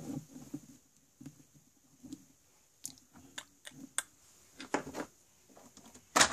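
Scattered soft clicks, taps and rustles of small plastic toy figures and the handheld phone being handled, with short quiet gaps between them.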